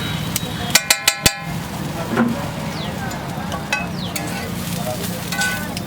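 Metal spatula clanking against a hot iron griddle, four quick ringing strikes about a second in and a couple more near the end, over a steady frying sizzle.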